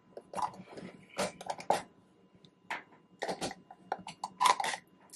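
A lid being twisted and pressed down onto a glass mason jar, pushing against a fermentation spring inside. It makes irregular clicks and scrapes in several short clusters as the threads catch and slip.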